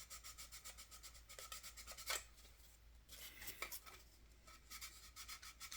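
Sandpaper rubbed quickly back and forth over dried filler putty on a plastic model car body, faint scratchy strokes about five a second with two brief pauses.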